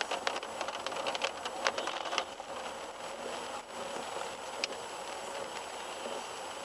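Steady road and cabin noise from inside a car crawling through a flooded, rain-wet street. A quick run of sharp ticks comes in the first two seconds, and one more tick comes about four and a half seconds in.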